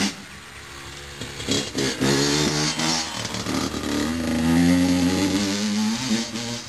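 Honda CR85R dirt bike's two-stroke single-cylinder engine revving up and down as it is ridden, getting louder from about two seconds in.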